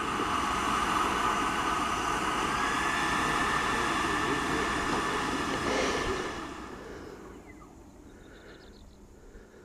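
Electric ducted fan of an RC BAE Hawk jet (Schuebeler DIA HST) running at high power with a steady, high whine and rushing air. It fades away after about six seconds.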